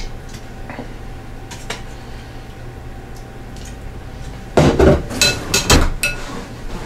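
Metal kitchen tongs and utensils clattering against a stainless steel cooker pot and a glass bowl. A few faint clicks are followed, about two-thirds of the way in, by a quick run of loud clanks and knocks.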